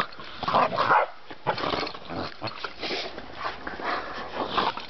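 Dogs making short, irregular vocal sounds, barks among them, during rough play-fighting that is play, not a real fight.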